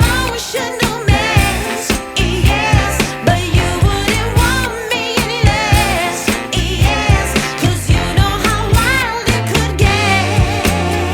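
Background pop song with a woman's singing voice over a steady drum beat.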